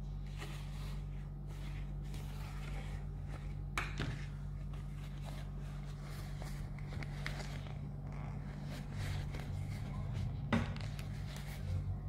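Soft rustling and scraping of a tanned sturgeon leather skin being flexed and rubbed by hands, with two sharp clicks, one about four seconds in and one near ten seconds, over a steady low hum.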